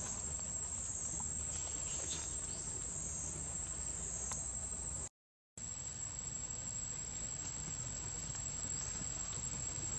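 Outdoor ambience with a steady, high insect buzz and a low rumble underneath, with a few faint ticks in the first half. The sound cuts out completely for about half a second midway.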